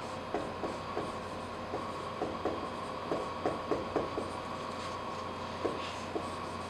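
Dry-erase marker squeaking in a dozen or so short strokes on a whiteboard as words are written, with a pause about five seconds in, over a steady room hum.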